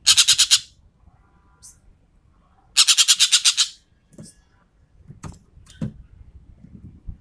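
Sumatran ekek keling bird giving two short, loud bursts of rapid-fire chattering, about ten harsh notes a second. One burst comes right at the start and one about three seconds in, with a few faint clicks and short notes between.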